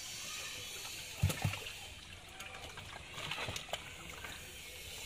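Water sloshing and splashing as live catfish are tipped from a plastic bucket toward a metal drum, with two heavy thumps just after a second in and a few sharper knocks a couple of seconds later.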